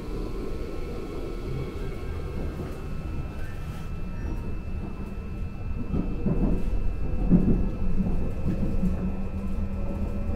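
Running noise inside a Seoul Subway Line 2 train car in motion: a steady low rumble of wheels on track under a faint steady hum. The rumble grows louder and rougher for a couple of seconds about six seconds in.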